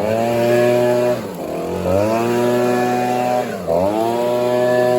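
Gas leaf blower engine running at high throttle. Twice it eases off, dropping in pitch, then spins back up.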